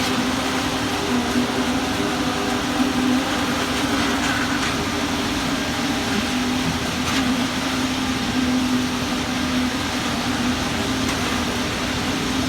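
Heavy construction machinery engine running steadily during a concrete pour, a continuous hum with a strong steady tone.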